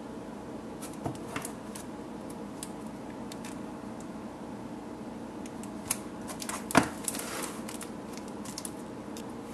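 Plastic CD jewel cases in cellophane shrink-wrap being handled and turned over: scattered light clicks and crinkles, with one sharp click about two-thirds of the way through, over a steady background hum.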